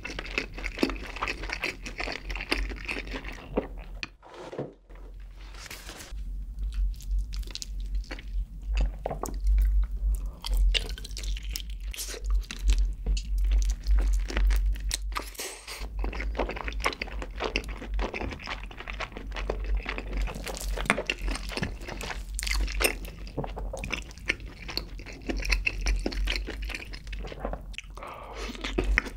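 Close-miked chewing and biting of a sauce-coated grilled chicken drumstick, a dense run of irregular sharp clicks and wet mouth sounds, with a short lull about four seconds in.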